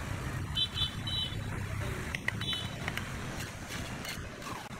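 Steel brick trowel tapping and scraping on bricks and mortar: a few sharp taps and short metallic rings, over a steady low rumble.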